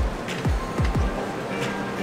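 Background music with deep bass-drum hits that drop in pitch, four of them in quick succession in the first second.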